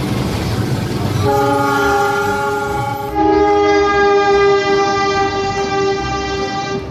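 Diesel locomotive horn sounding as a passenger train passes. Train noise comes first, then a long horn blast starts about a second in. At about three seconds it changes to a louder horn note held until near the end.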